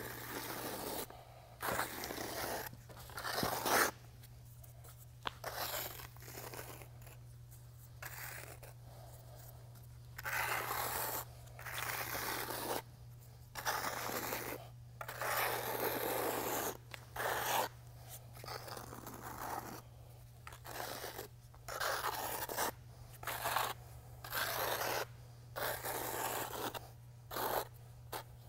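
Notched trowel scraping through self-leveling epoxy on a concrete floor in a long run of uneven strokes, each about half a second to a second and a half, with a steady low hum underneath.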